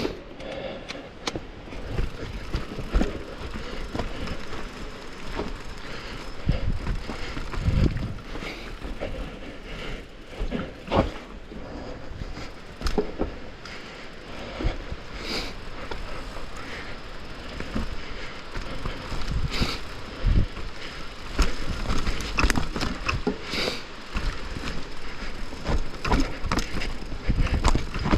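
Downhill mountain bike descending a trail: tyres crunching over dirt, with the frame and chain rattling and sharp knocks from bumps and roots throughout, over a low rumble.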